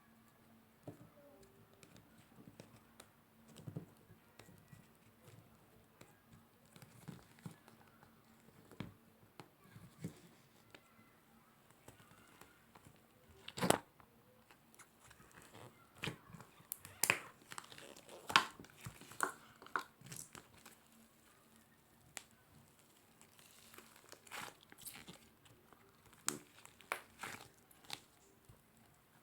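Hands playing with slime: irregular sticky clicks, crackles and pops as it is pressed and stretched. The loudest snaps come about 14 and 18 seconds in.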